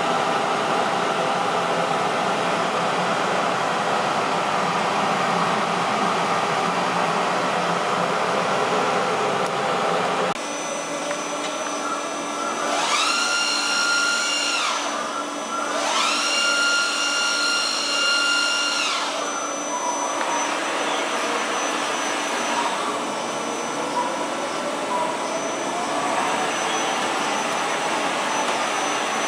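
Steady electrical hum and fan noise from the milling machine's Siemens drive cabinet. After about ten seconds the FPT AREA M80 travelling column milling machine's drives take over: twice they whine up in pitch, hold steady and wind back down, then come slower, fainter rising and falling whines.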